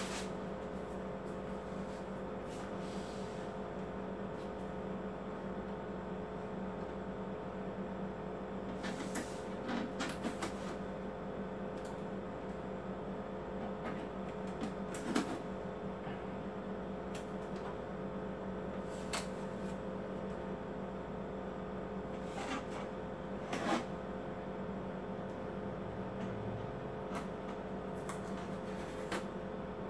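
A steady electrical hum with several constant tones. Over it come a handful of brief, scattered clicks and rustles from hands handling the printer and its blue packing tape, the sharpest about midway and again a little later.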